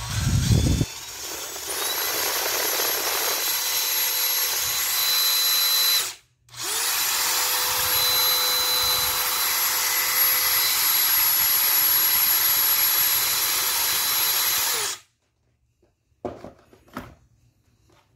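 DeWalt DCD805 20V brushless hammer drill spinning free with an empty chuck, trigger held: a steady high motor whine for about six seconds, a brief stop, then a second run of about eight seconds that cuts off. A few light knocks follow near the end.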